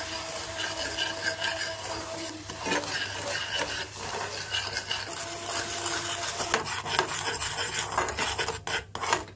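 Steel spoon stirring and scraping sugar and water around a metal saucepan in short irregular strokes, with a grainy rasp, as the sugar melts down into caramel.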